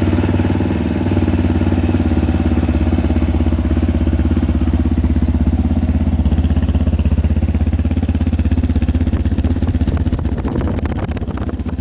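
Zongshen RX3's 250 cc single-cylinder engine idling steadily through its stock Euro 5 exhaust.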